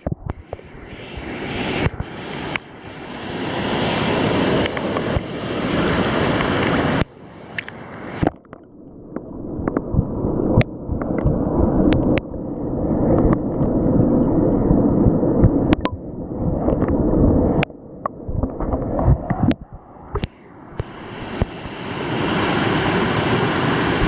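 Water sloshing and splashing at a waterproof camera held at the surface, turning to muffled rushing with the high end gone while the microphone is under water. The full rush of a small waterfall returns near the end.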